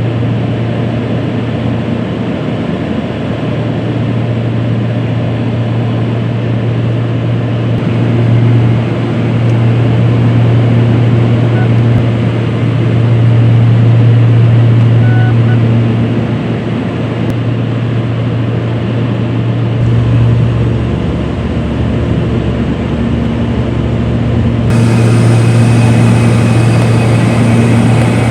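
An aircraft in flight, a steady drone heard from inside the cabin. A strong low hum swells and eases every few seconds, and near the end a brighter hiss with higher tones joins in.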